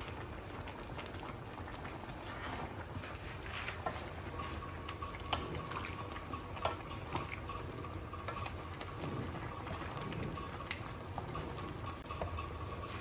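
Chop suey vegetables bubbling in broth in an aluminium pan. From about four seconds in, a wooden spatula stirs them, with scattered clicks and knocks against the pan.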